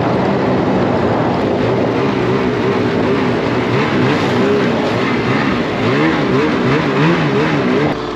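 Snowmobile engine running hard, its pitch rising and falling again and again as the throttle works while the sled climbs over a plowed snowbank into deep powder.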